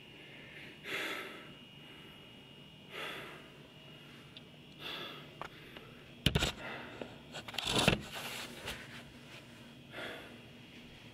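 A man breathing heavily, four slow, loud breaths a couple of seconds apart. Between about six and eight seconds in, sharp knocks and rustling of the camera being handled, the loudest sounds here.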